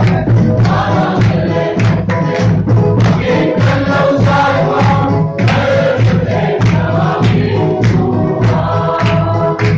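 A congregation singing a hymn together in full voice, over a steady drumbeat about twice a second.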